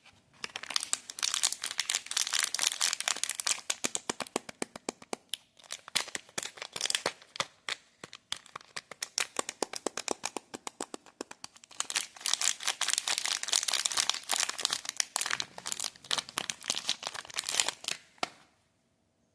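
Lux soap bar wrappers being crinkled and torn open by hand: dense crackling with sharp tearing, in two long spells with a brief lull between, stopping near the end.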